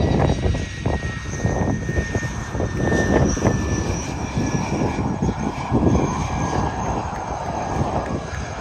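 F-16 fighter jet's engine running at low power as the jet rolls out along the runway after touchdown: a steady jet rumble with a thin high whine, easing slightly near the end.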